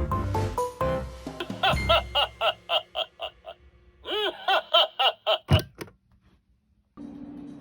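Background music gives way to a quick, high-pitched laugh, 'ha-ha-ha', in two runs of rapid syllables, cut off by a sharp thump. Guitar music starts near the end.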